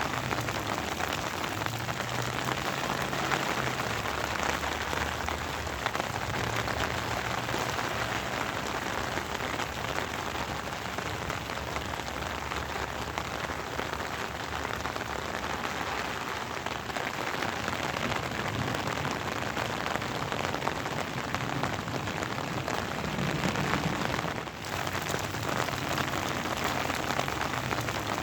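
Steady rain falling, a dense continuous patter of raindrops on surfaces. The sound drops out briefly for a moment about 24 seconds in.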